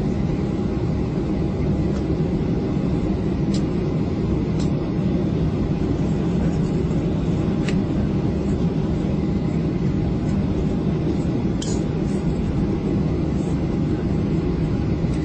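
Steady cabin noise of an airliner taxiing, with its jet engines running at low power and a constant low rumble, heard from inside the passenger cabin. A faint steady tone runs under it, with a few faint ticks here and there.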